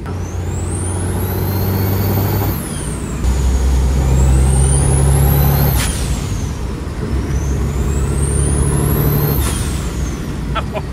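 Turbocharged Detroit Diesel truck engine under heavy throttle. Its turbo whine climbs to a shrill pitch three times, each run about two and a half seconds, and drops away sharply as the throttle comes off. The deep engine drone holds underneath, stepping lower after the first pull.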